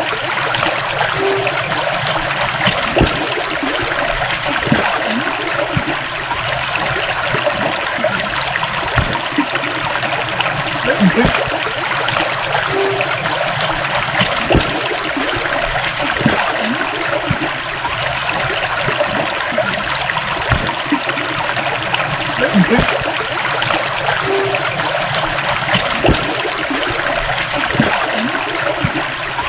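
A small stream trickling and babbling steadily over stones, with many small gurgles and splashes.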